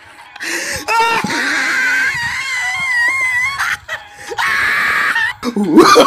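High-pitched screaming voice with a wavering pitch, in two long stretches, the second shorter.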